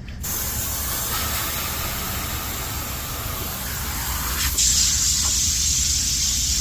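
Nitrogen hissing out of the refrigerant line set and gauge hose, released ahead of pulling a vacuum. The hiss gets louder and sharper about four and a half seconds in.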